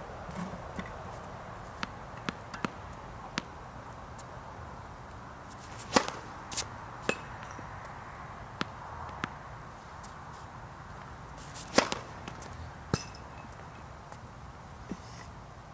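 Two tennis serves: the racket strikes the ball with a sharp crack about six seconds in and again just before twelve seconds, each followed by fainter knocks of the ball landing further off. Lighter taps scattered through the rest are ball bounces and handling on the hard court.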